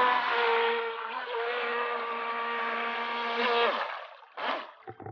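RC speedboat's motor running at speed: a steady whine over a rushing haze. It drops in pitch and stops just under four seconds in, followed by a couple of brief noises.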